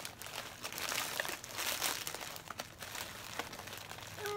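Plastic shopping bag crinkling and rustling in irregular bursts as it is rummaged and tipped to shake out an item stuck at the bottom.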